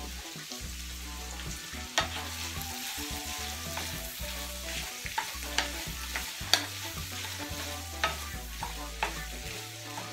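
Onions sizzling as they sauté in a hot skillet, stirred with a wooden spoon. The spoon knocks sharply against the pan now and then.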